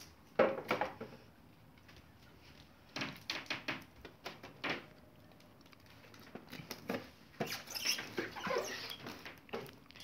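Plastic casing of a split air-conditioner indoor unit being handled: clusters of light clicks, taps and rattles as it is gripped and pressed, with a denser run of clicking near the end.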